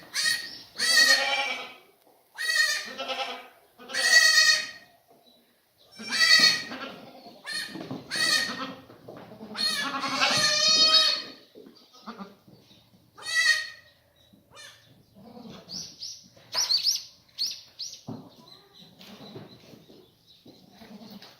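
Korean black goats bleating: about eight loud, wavering bleats over the first fourteen seconds, then fainter, higher-pitched bleats near the end.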